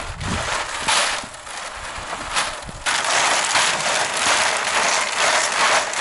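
Coil of red PEX hydronic tubing turning on a ribbed rebar axle as tubing is pulled off, a grinding, ratchet-like rasp. Patchy at first, then continuous and louder from about halfway through.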